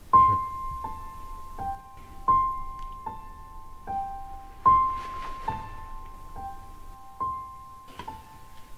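Soft piano music: a slow melody of single high notes, a falling three-note figure repeated about every two and a half seconds, each note struck and left to ring.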